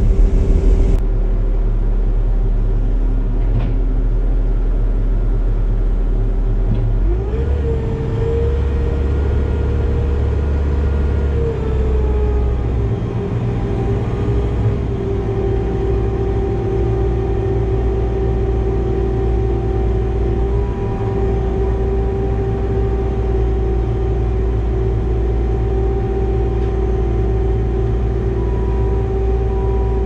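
Skid steer engine running steadily, heard from inside the cab. About seven seconds in its pitch rises, holds for a few seconds and drops back near twelve seconds as the controls are worked.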